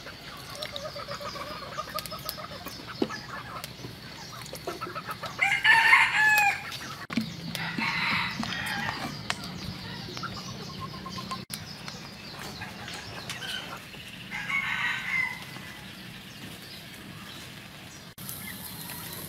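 Chickens clucking, with a rooster crowing a few times; the loudest crow comes about six seconds in.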